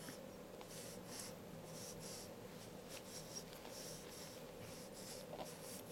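A newborn baby's faint, snuffly breathing through the nose: soft hissy puffs repeating about every half second to a second, over a steady low room hum.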